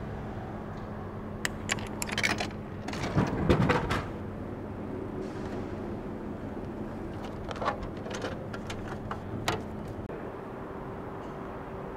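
Drink vending machine humming steadily, with clicks and knocks as it is worked; the loudest clatter comes about three to four seconds in.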